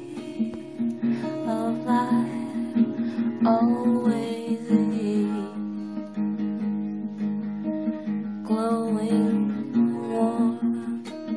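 Acoustic guitar strumming steady chords in a folk song, with a melody line that slides between notes coming in over it a few times.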